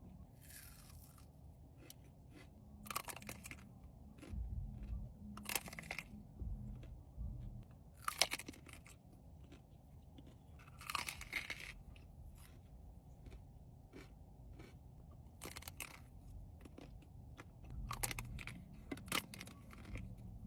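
Close-miked eating: bites and chewing of a dessert, with sharp mouth noises every few seconds over a low steady hum.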